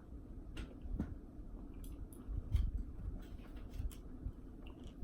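Close-miked eating sounds: soft chewing and squishing of food, with scattered small clicks like cutlery on a plate.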